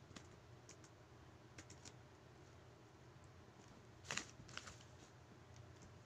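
Faint computer keyboard keystrokes: a few scattered soft key clicks, with a couple of sharper clicks about four seconds in, over a faint low hum.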